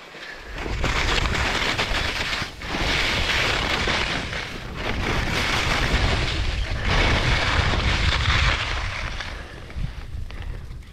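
Skis scraping and carving over packed, chopped-up snow on a steep downhill run. The hiss swells and eases every couple of seconds with the turns, over a low rumble of wind buffeting the microphone.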